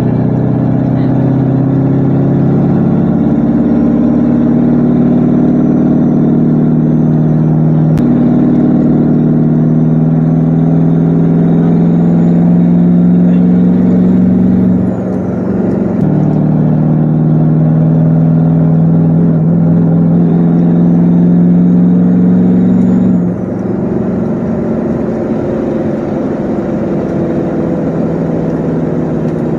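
6.5-litre turbo-diesel V8 pulling through the gears, heard from inside the cab: a steady drone slowly climbing in pitch with a faint turbo whistle rising above it. The pitch and whistle drop at a gear change about halfway through, climb again, then fall lower and quieter about three-quarters of the way through.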